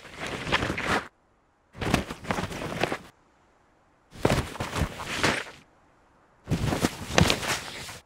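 Skis cutting and landing through deep powder snow: four separate bursts of rushing, crunching snow, each a second or so long, with silence between them.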